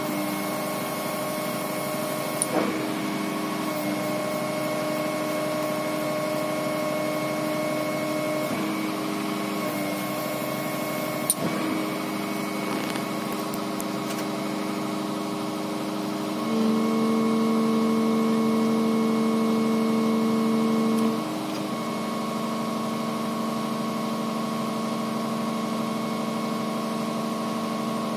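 Steady hum of the carrier machine's engine and hydraulic system driving a Mantovanibenne (MBI) RP20-IT demolition crusher, with a few single clicks early on. About two-thirds of the way through, the hum gets louder and stronger-toned for about five seconds, then drops back.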